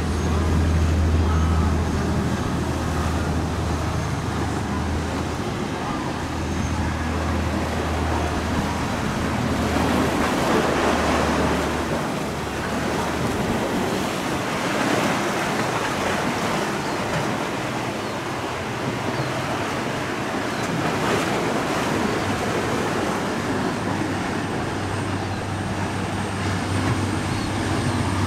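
Large sportfishing yachts' diesel engines running with a steady low drone as the boats plough through rough water, with the rush of spray, waves and wind. Midway the engine drone drops away under a louder wash of surf and wind, then returns near the end.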